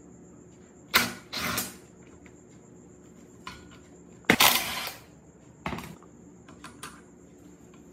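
Tools and parts being handled on a workbench: a few sharp knocks, each of the first two followed by a short scrape, with light clicks near the end. These are the sounds of work on a rusted, seized electric water pump.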